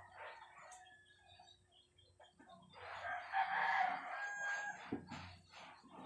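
A rooster crowing once, starting about three seconds in and lasting about two seconds.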